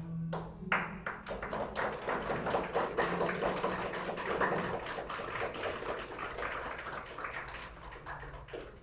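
Small indoor audience clapping after the music ends: a dense patter of hand claps that builds quickly just after the start and dies away near the end.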